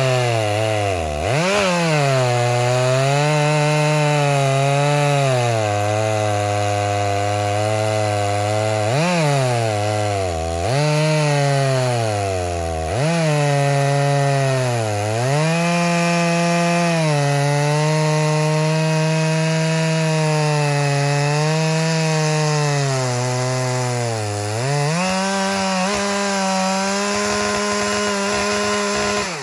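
Two-stroke chainsaw at full throttle ripping lengthwise through an old-growth pine log on a chainsaw mill. The engine speed sags sharply and recovers about six times as the saw bogs under the load of the cut.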